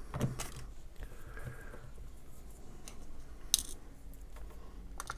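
A few light clicks and taps from handling small paper craft pieces on a work surface. The sharpest tap comes about three and a half seconds in.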